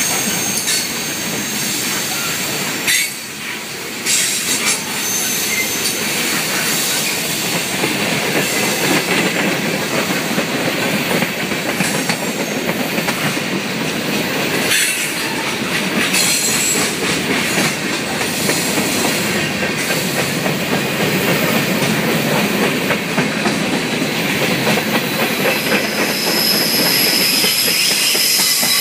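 Freight cars (tank cars and covered hoppers) rolling past close by, a steady rumble of steel wheels on the rails with clickety-clack over the joints. A thin high wheel squeal comes in near the end.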